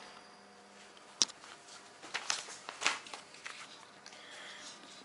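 Quiet small-room tone with a sharp click about a second in, then a few lighter clicks and rustles of someone moving about and handling things.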